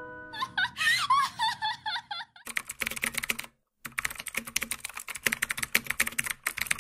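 A high, giggling laugh for about two seconds, then a rapid run of computer-keyboard typing clicks with a brief pause partway through, a typing sound effect for text being typed out.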